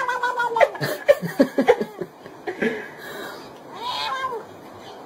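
Grey cat yowling while being stroked. A long drawn-out call ends about half a second in, choppier short sounds follow, and a second yowl near four seconds in rises and falls in pitch.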